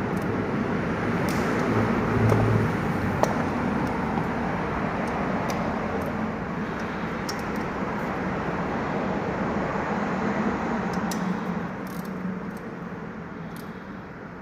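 Car driving, with steady road and tyre noise and a few faint clicks; the sound eases off near the end.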